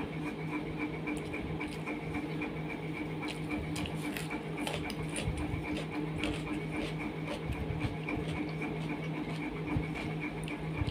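A steady low hum with a regular pulse, under scattered soft clicks and smacks of eating by hand: fingers mixing rice and curry on a steel plate, and chewing.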